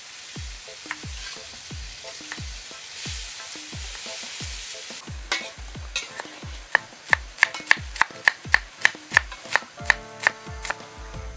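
Kitchen knife slicing shallots on a round wooden chopping block: a regular series of dull knocks, about two a second, turning into quicker, sharper taps about halfway in.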